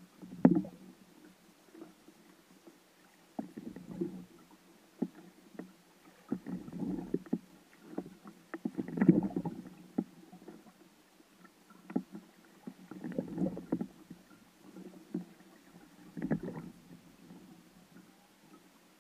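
Water sloshing and gurgling against a kayak hull in short, irregular swells every one to three seconds, over a faint steady hum.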